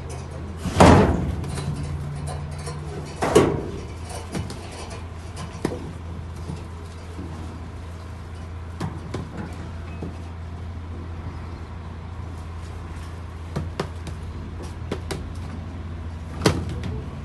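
Boxed hardware units clattering as they are thrown onto a pile in a steel shipping container: loud hits about a second in, a few seconds in and near the end, with smaller knocks between. A steady low hum runs underneath.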